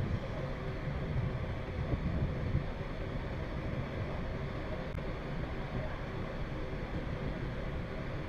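A passenger ferry under way: a steady engine drone with wind and water noise.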